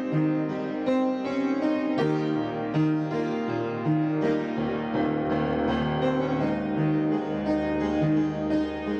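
Background music: a keyboard piece, piano-like, with steady repeated notes over a sustained bass.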